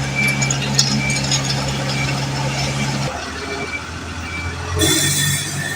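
Heavy road-works vehicle running, with a reversing alarm beeping about once a second. The engine note changes about halfway through, and a short burst of hissing comes near the end.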